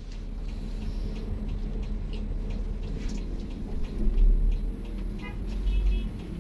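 Coach bus engine and road rumble heard from inside the cabin as the bus drives, with light clicks and rattles; the rumble swells about four seconds in.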